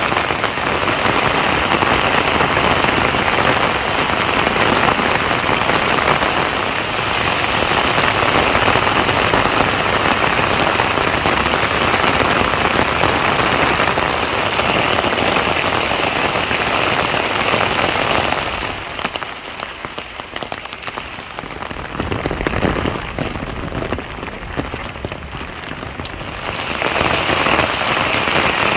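Steady rain falling and pattering on surfaces, a loud even hiss that drops to a quieter, thinner patter for several seconds about two-thirds of the way through, then returns.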